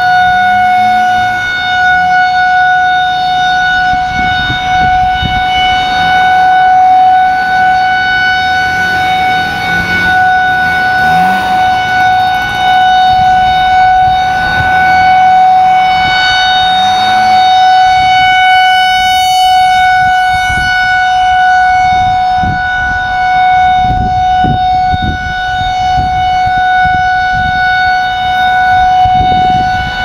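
Outdoor tornado warning siren sounding a test, a loud steady wail held at one pitch with a stack of overtones.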